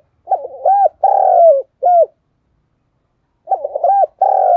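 Spotted dove cooing its song: a phrase of short notes, one long middle coo and a clipped last note, then a second phrase beginning about three and a half seconds in.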